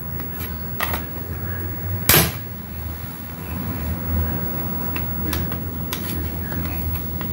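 Plastic snap-fit housing of a JBL portable Bluetooth speaker being pried apart by hand and with a small blade: scattered small clicks and one loud sharp snap about two seconds in. The clips are tightly fitted and hard to release.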